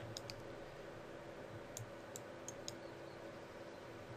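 About six light, scattered clicks of computer mouse buttons and keys, over a faint steady hum.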